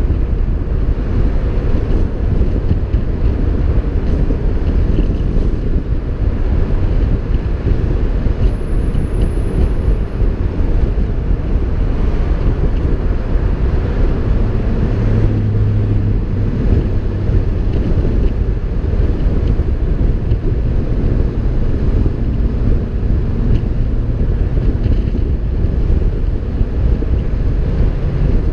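Wind buffeting a car-mounted GoPro Hero4 Black's microphone while the car drives at freeway speed: a steady, loud low rumble with road and tyre noise mixed in.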